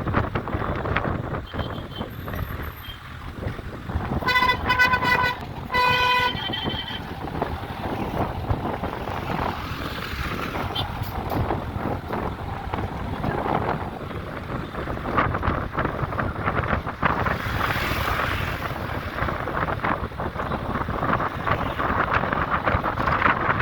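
Steady road traffic noise with wind on the microphone, and a vehicle horn honking twice about four to six seconds in, the first honk longer than the second.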